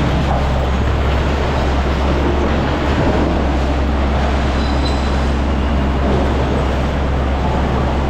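Diesel machinery running steadily with a deep low hum, in a large reverberant waste shed where a mini excavator is working close by.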